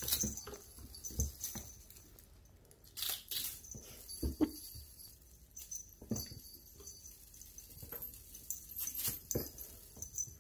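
Bengal kittens leaping and landing on a tile floor while they play: irregular soft thumps and paw scuffles. A small collar bell jingles lightly in between.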